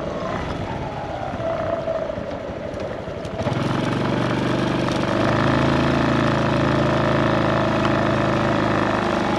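Honda Super Cub's single-cylinder four-stroke engine running at low speed. About three and a half seconds in it gets louder and settles into a steady drone as the bike pulls away.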